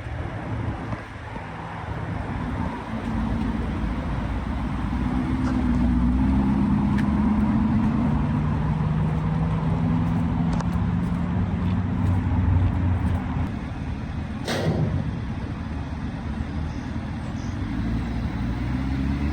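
A vehicle engine running steadily at low revs with a low drone, and one sharp clank about three-quarters of the way through.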